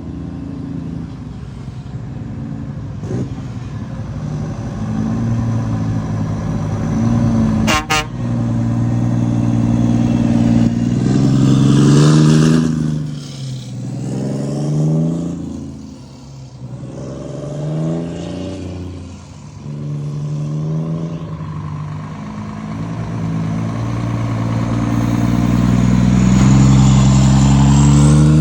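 Scania truck engines pulling away hard through the gears, the exhaust note climbing in pitch and dropping back at each gear change, then rising steadily near the end; the trucks are running empty. A brief sharp crack about eight seconds in.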